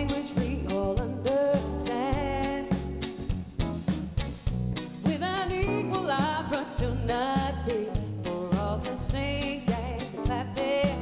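Live soul band playing, with a woman singing lead over drums and electric bass.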